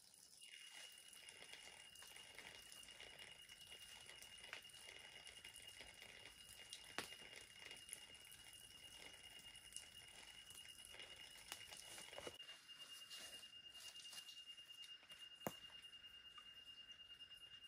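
Faint night-time forest ambience: a steady, high-pitched insect trill, with scattered small crackles and rustles and two sharper snaps, one midway and one near the end.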